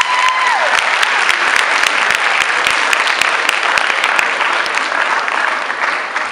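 Audience applauding: many people clapping, the clapping thinning out and fading near the end.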